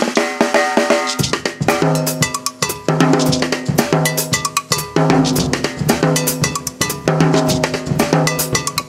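Drum kit played with sticks in a steady, fast groove: snare, bass drum and cymbals, with sharp hits on a mounted percussion block that rings like a cowbell.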